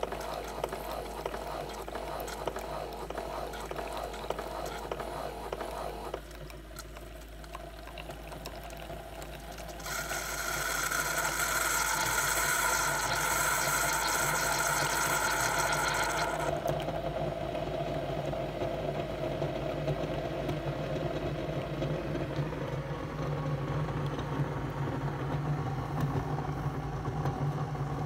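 Keurig 2.0 coffee brewer finishing a brew: coffee running into a mug, then a loud hiss for about six seconds as air and steam are pushed through the pod at the end of the cycle, followed by a steady low hum of the machine's pump and motor.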